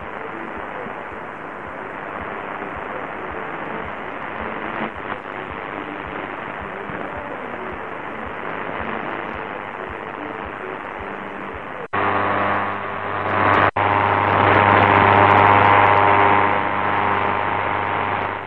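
Qodosen SR-286 portable radio on medium wave: a weak signal barely above a steady static hiss. About twelve seconds in, the tuning steps up with a brief mute and lands on a louder signal carrying a steady buzzing hum.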